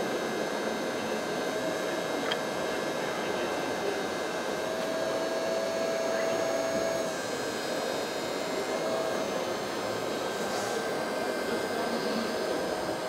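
Hydraulic pump of an RC scale Liebherr 924 wheeled excavator whirring steadily as it works its boom and log grapple. A whine in the pump grows stronger for about two seconds in the middle.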